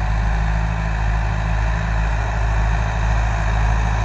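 Sonalika 60 RX tractor's diesel engine running steadily under heavy load, pulling a disc harrow with its rear tyres slipping in wet black soil.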